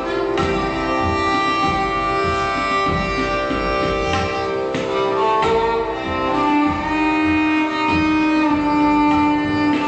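Violin playing a melody in Raag Kafi, with long held bowed notes, accompanied by tabla strokes.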